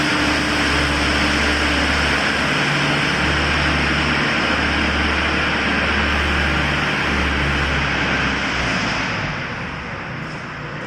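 CNC router's air-cooled spindle running and cutting wood: a loud, steady whir with a high whine and a low hum that comes and goes every couple of seconds. It gets quieter about nine seconds in.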